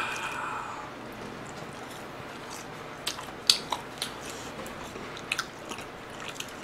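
A person chewing a mouthful of food close to the microphone, with a few sharp wet mouth clicks, the loudest about three and a half seconds in.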